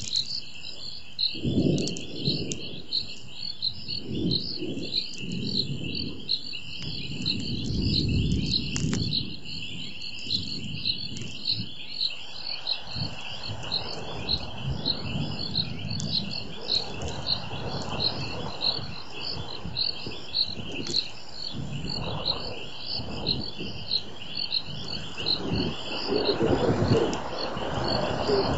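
Night chorus of frogs and insects at a waterhole: steady, rhythmic high-pitched chirping a few times a second, with irregular low rumbles under it during the first half.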